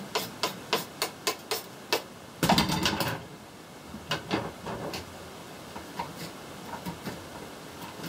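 Knife chopping vegetables on a cutting board, about four even chops a second, then a short louder clatter about two and a half seconds in, followed by slower, scattered cuts.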